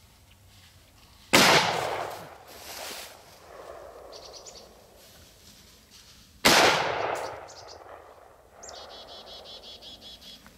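Two gunshots from a deer-hunting gun, about five seconds apart, each trailing off in a long echo.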